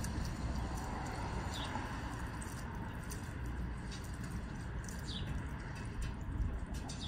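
Steady wind rumble on the microphone outdoors, with a small bird's short downward chirps a few times.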